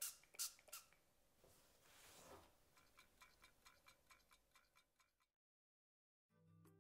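An oil pump sprayer spritzes three times in quick succession, then a run of light ticks follows. The sound cuts out, and soft music begins near the end.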